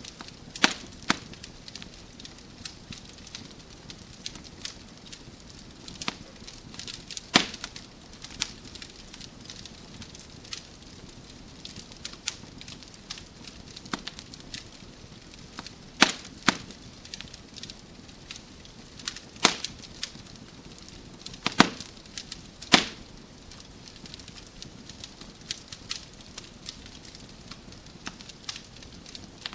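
Wood fire in a fireplace crackling, with a steady low hiss and irregular sharp pops and snaps from the burning logs, several louder pops standing out.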